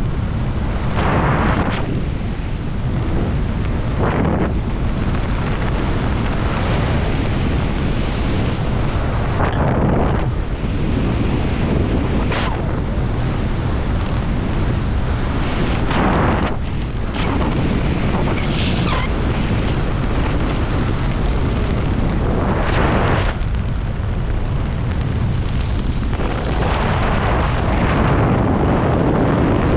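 Airflow buffeting the camera microphone in flight under a paraglider canopy: a loud, rumbling wind rush that swells in repeated gusts.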